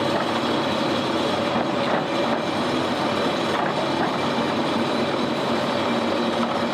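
Heavy construction machinery working: a diesel engine running under steady load, with continuous metallic clattering and squealing.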